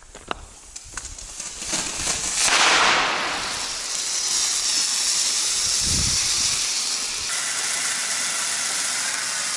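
Hand-held red signal flare burning with a loud, steady hiss that swells up about two seconds in.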